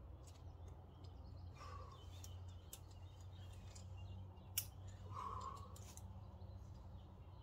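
Climbing rope being clipped into a quickdraw's carabiner: scattered light clicks of rope and gear handling, with one sharp metallic click a little past halfway. A faint steady low hum sits underneath.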